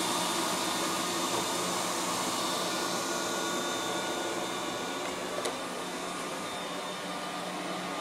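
Liectroux B6009 robot vacuum cleaner running on carpet: the steady whirr of its suction fan with a low hum, growing slightly fainter as it drives away. A light click about five and a half seconds in.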